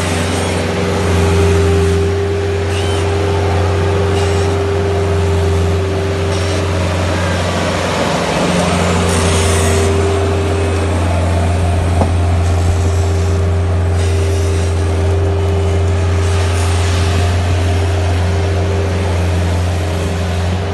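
Bobcat skid-steer loader's engine running steadily as it works, a constant low drone with a hiss of noise over it.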